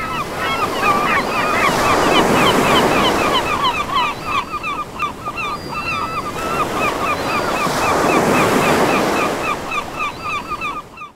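Surf breaking and washing on a beach, fading up over the first couple of seconds, with a flock of birds calling over it: many short, repeated calls, several a second, overlapping.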